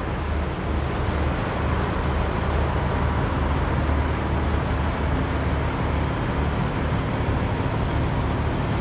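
Peterbilt big-rig diesel engine idling steadily, an even low hum.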